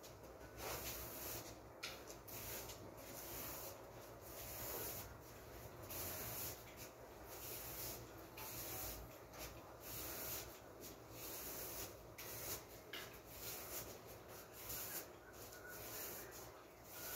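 Soft broom sweeping fine dust across a tiled floor: repeated brushing swishes, irregular, about one stroke a second.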